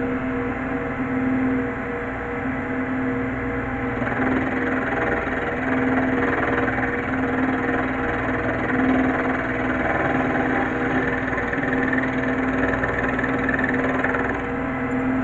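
A machine tool running steadily, cutting cast iron: an even motor or spindle hum with a rough cutting noise over it.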